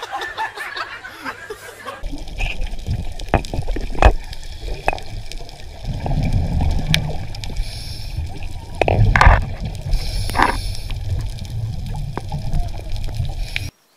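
Underwater sound picked up by a diver's camera: a muffled low rumble with repeated surges of bubbling water, after a couple of seconds of crowd chatter. It cuts off abruptly near the end.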